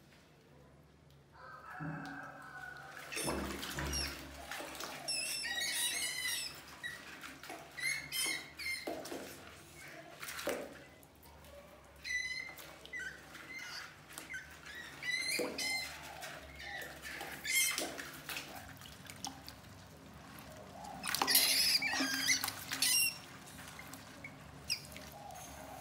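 Rats trapped in a plastic bucket of water squeaking again and again in short high chirps, with splashing and scrabbling against the bucket as they thrash about.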